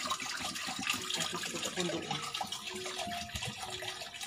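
Water poured from a plastic bottle into an air cooler's water tank: a steady trickling, splashing flow.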